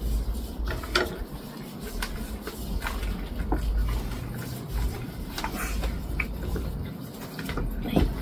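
Gloved hands mixing raw chicken pieces with marinade in a plastic bowl: wet squishing with scattered light clicks and scrapes against the bowl, over a steady low rumble.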